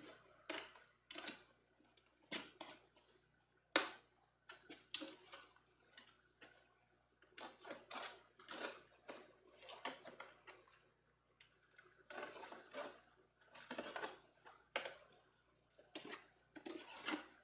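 Hand deburring tool scraping burrs off the trimmed edge of a thermoformed plastic guitar body, in short, irregular strokes, with one sharp click about four seconds in.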